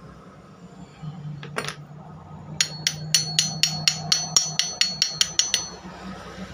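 Hammer tapping on metal to drive a bearing into place on an indoor AC fan motor, done without a press: one strike, then a quick run of about fifteen ringing taps at about five a second.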